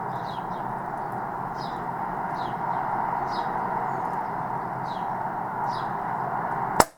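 A small bird chirping about once a second over a steady hiss, then near the end a single sharp crack from a BAM B4 .22 under-lever spring air rifle firing, which cuts the background sound out suddenly.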